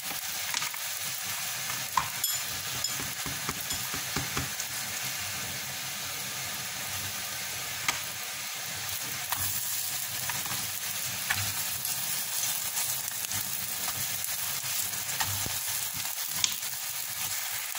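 Rghaif (Moroccan layered flatbreads) sizzling steadily in oil on a cast-iron griddle pan, with a few short clicks as they are handled.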